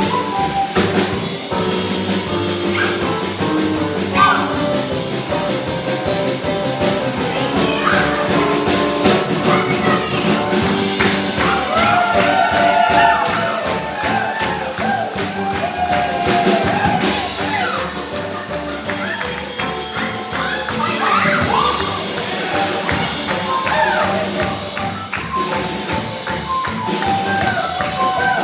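Stage-show music playing continuously, with percussion keeping a steady beat.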